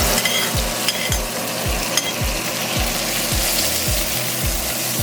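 Garlic, onion and pepper sizzling and frying in hot oil in a pot, the sizzle jumping up at the start as they go in and staying steady as they are stirred. A steady low beat of background music thumps about twice a second underneath.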